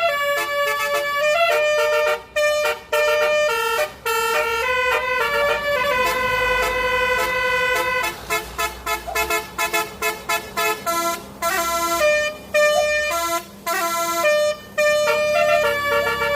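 Bus "telolet" multi-tone air horn playing a tune: held notes stepping from pitch to pitch, then a run of short, quick toots from about halfway through.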